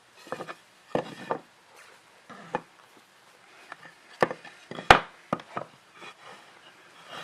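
Wooden pieces being handled and fitted together: a series of sharp wooden knocks, the loudest about five seconds in, between short sliding scrapes of wood on wood.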